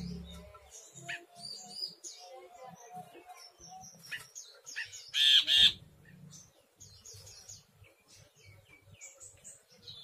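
Brinji kelabu, a grey bulbul, calling: a scattered run of short chirps and whistled notes, with one much louder call about five seconds in.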